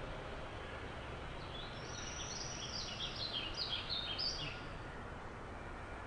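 A songbird sings a quick run of short high chirping notes, starting about a second and a half in and lasting about three seconds, over a steady low background hiss.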